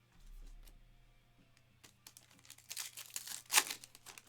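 A trading-card pack's foil wrapper crinkling and being torn open, a dense run of crackles that peaks about three and a half seconds in.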